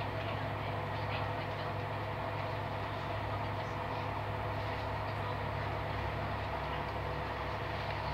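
Steady running noise of a Corail passenger coach travelling at speed, heard from inside: wheels rolling on the rails with a low, even hum.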